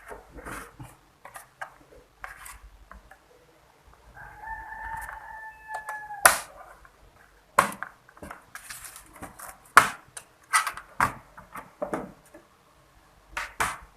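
A rooster crows once in the background, one drawn-out call about four seconds in. From about six seconds on come a run of sharp, loud clicks and knocks from handling hardware.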